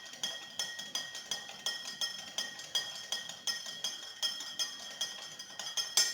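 A spoon stirring coffee in a cup, clinking against the sides about three times a second, each clink ringing briefly. The loudest clink comes near the end, just before the stirring stops.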